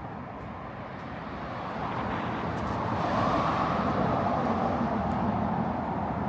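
A car passing on the street, its tyre and engine noise swelling to its loudest about three seconds in and then fading slowly.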